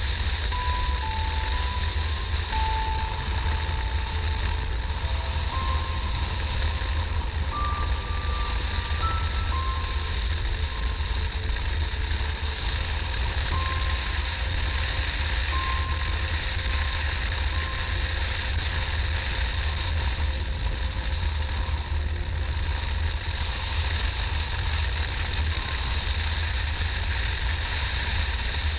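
Steady wind rush and engine noise of a motorcycle under way. Through the first half a thin, simple tune of short single notes plays faintly over it.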